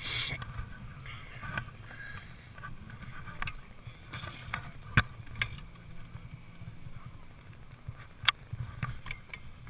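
Wind rumbling on the microphone, with two sharp clicks, one about halfway through and one near the end.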